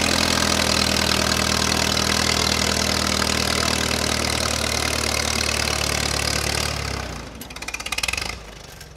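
Minneapolis Moline tractor engine running steadily under load while pulling a weight-transfer sled. About seven seconds in the sound drops sharply, with a brief rhythmic pulsing before it goes much quieter.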